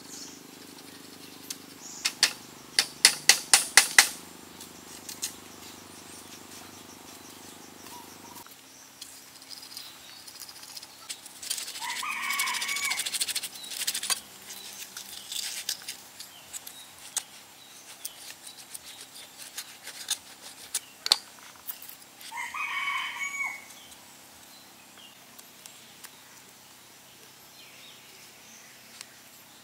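A quick cluster of sharp knocks or taps, then scattered clicks, with two drawn-out animal calls of about two seconds each, one near the middle and one later.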